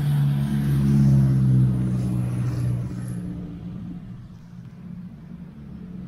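A motor vehicle's engine running close by, loudest about a second in and fading away after about three seconds.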